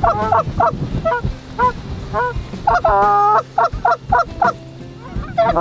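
Canada goose honks and clucks: a rapid string of short, sharp calls, with one longer drawn-out honk about three seconds in.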